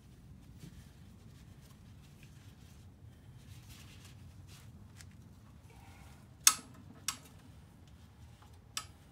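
Hands working an old seat belt around an engine block as a lifting sling: faint rustling and scraping, with three sharp clicks, the loudest about six and a half seconds in, a second half a second later and a third near the end.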